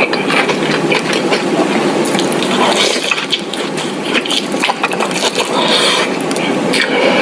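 Someone eating crab close to the microphone: wet cracking, chewing and sucking noises, thick with small clicks.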